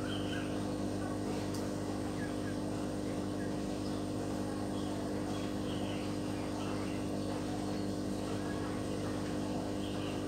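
A steady low background hum made of several fixed tones, like a small motor or electrical appliance running. It keeps the same level throughout, with no speech.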